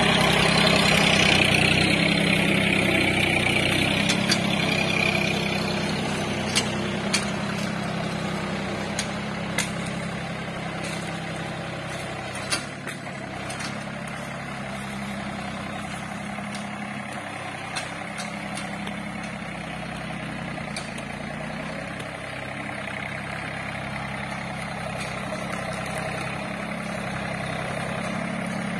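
John Deere 3028 EN compact tractor's three-cylinder diesel engine running steadily under load as it pulls a duckfoot cultivator through soil. It is loudest at first and grows fainter as the tractor moves away. A few sharp clicks come in the first half.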